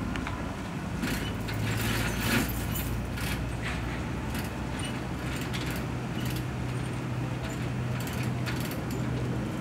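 Route/destination rollsign on a PCC streetcar being scrolled, its mechanism giving irregular clicks and rattles as the destination curtain winds past. A steady low hum sets in about a second in.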